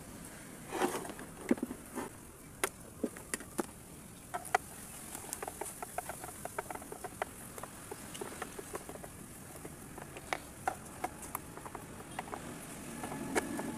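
Irregular clicks and knocks of a screwdriver working the screws in the plastic underside of a Panasonic MX-101SG1 blender base, with the housing being handled on a plastic table. The loudest knocks come about a second in, as the blender is being turned over.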